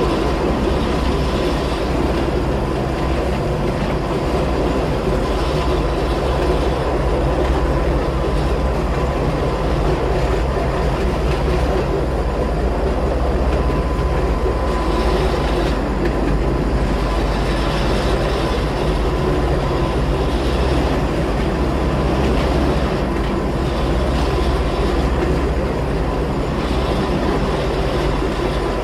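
Running noise heard from inside a Gornergrat Bahn electric rack-railway railcar climbing uphill: a steady loud rumble with a thin steady high tone in it, and now and then a faint brief high squeal.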